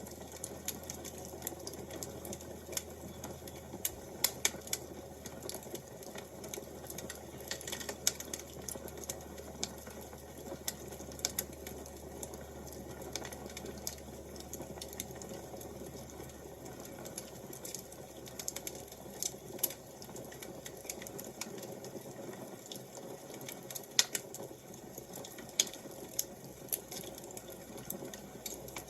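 Wood fire crackling: irregular sharp pops and snaps, a few louder ones, over a steady soft rush.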